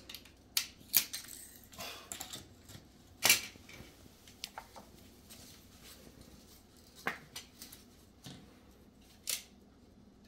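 A utility knife cutting wood flooring planks, and the planks being handled on a bare subfloor, giving scattered sharp clicks and knocks. The loudest knock comes about three seconds in.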